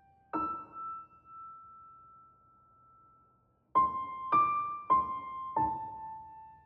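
Soft piano music, a slow melody of single notes: one note rings and fades near the start, then four notes follow in quick succession in the second half.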